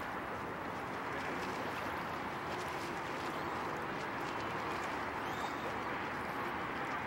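Steady rush of wind and lapping water at the lake's edge, with faint light splashes as a kayak paddle dips while the boat moves away.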